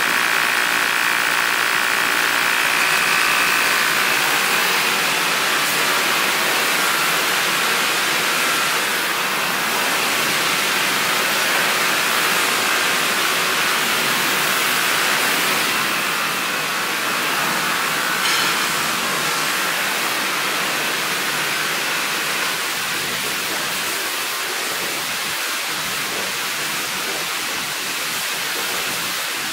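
Pump-up foam sprayer's nozzle hissing steadily as it lays foam on a car, while the electric bicycle pump attached to it runs with a faint whine to keep the tank pressurised.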